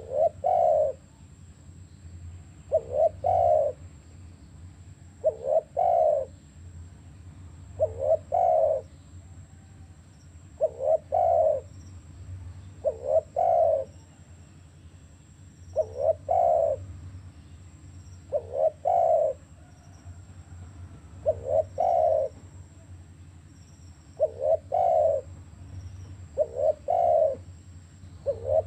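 Spotted dove cooing: a quick short coo run into a longer one, the phrase repeated about every two and a half seconds.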